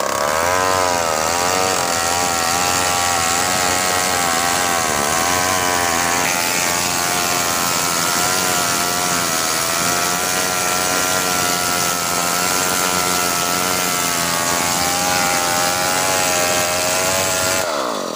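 Large two-stroke chainsaw running at high revs while cutting through a big log, its pitch wavering as the chain loads and frees in the wood. Near the end the revs fall away as the throttle is released.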